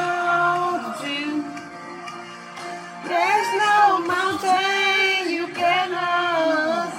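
Background music: a pop song with a sung melody over sustained accompaniment, quieter for a moment about two seconds in.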